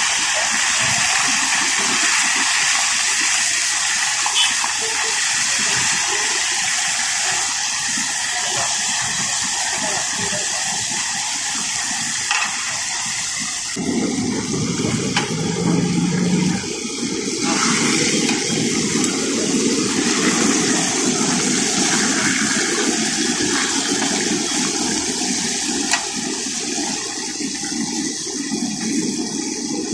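Whole masala-coated fish deep-frying in hot oil in a large iron pan: a loud, steady sizzle with an occasional pop. A lower rumble joins about halfway through.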